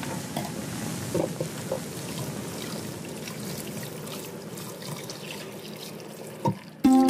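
Tap water running and splashing into a bowl of dried mushrooms in a stainless-steel sink as they are rinsed by hand, with a few faint knocks. Plucked-string music comes in right at the end.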